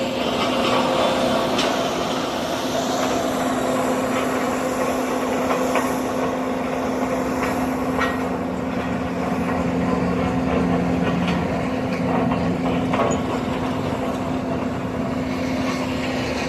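Heavy road-paving machinery engine running steadily nearby: a constant drone over broad noise, with a second, lower hum joining for a few seconds around the middle.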